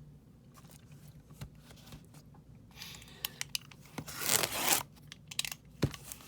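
Packaging on a sealed box of trading card packs being torn open: a few small clicks and scrapes, then a short tearing rip about four seconds in, and a sharp click near the end.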